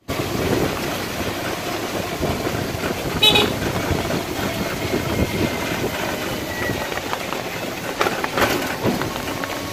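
Steady running noise of a vehicle driving along a wet road, with a short horn toot about three seconds in and a couple of knocks near the end.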